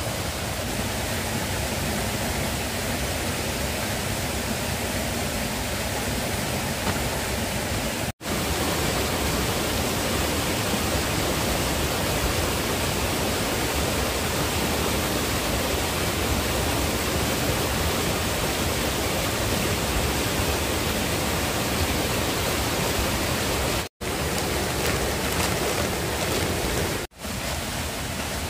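Steady rushing noise, like running water, broken three times by an abrupt moment of silence.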